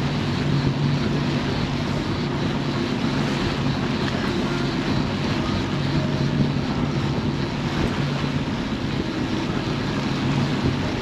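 Twin 150-horsepower outboard motors running at a steady trolling speed, a low drone, with the wake rushing behind and wind on the microphone.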